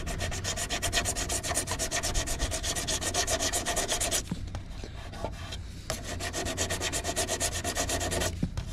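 An 80-grit sanding disc rubbed by hand over a fibreglass bumper in quick, short back-and-forth strokes, sanding down a small blemish in the fibreglass. The rubbing stops for about a second and a half in the middle, then picks up again.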